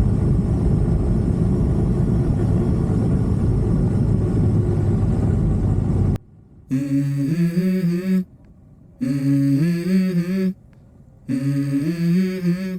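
Motorcycle engine and wind noise from riding for about six seconds, cutting off abruptly. Then the opening of a song: a hummed or chanted vocal melody in three short phrases with gaps between them.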